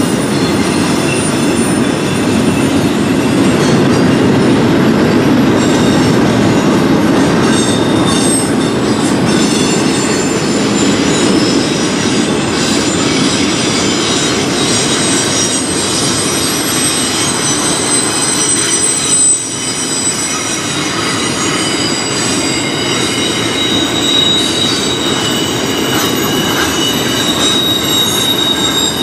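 Intermodal freight cars with double-stack containers and trailers rolling steadily past on a curve. The wheels clatter on the rail while several high, steady squealing tones from wheel flanges grinding on the curve grow stronger in the second half.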